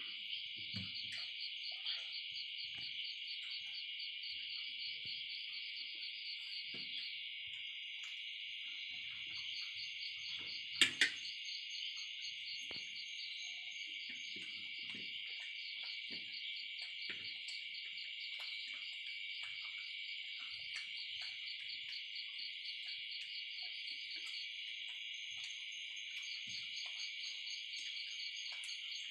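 Steady, shrill insect chirring that pulses rapidly and never breaks. About eleven seconds in come two sharp clinks, the loudest sounds.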